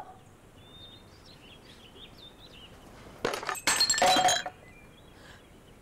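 Crockery smashing about three seconds in: a short crash, then a longer one with the pieces ringing.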